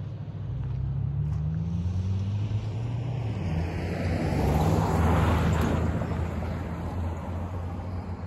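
A car drives past, swelling to its loudest about five seconds in and then fading, over a steady low engine rumble.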